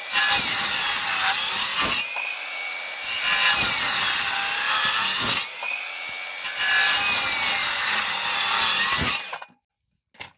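Ridgid circular saw cutting into a wooden beam in three passes. The motor keeps running between the cuts, and it stops a little after nine seconds.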